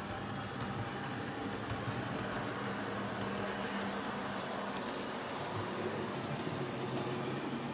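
OO gauge model trains running on the layout: a steady electric-motor whir and wheel rumble on the track, with light irregular ticks.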